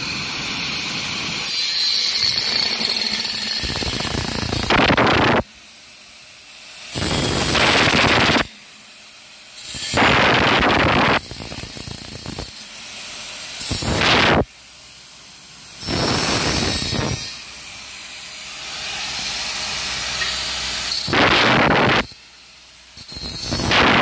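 Handheld angle grinder with a cut-off disc cutting through the side rail of a perforated metal cable tray in short passes: about seven loud grinding cuts of one to two seconds each, with the disc spinning freely and more quietly between them.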